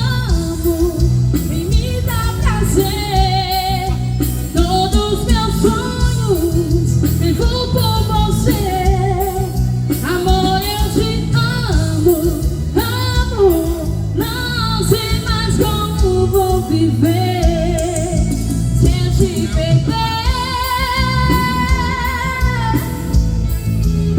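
Live music: a singer holding long, wavering notes with vibrato over a band accompaniment with a steady beat.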